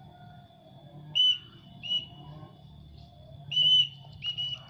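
Short shrill whistle blasts at one steady pitch, five in all, the longest near the end: a handler whistling to call a trained pallow bird down from flight back to the hand.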